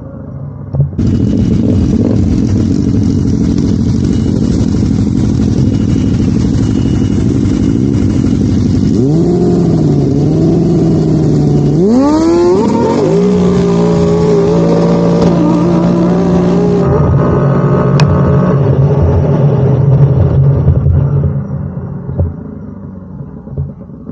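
ATV engine running hard and accelerating, its pitch climbing twice and then holding steady, fading out near the end.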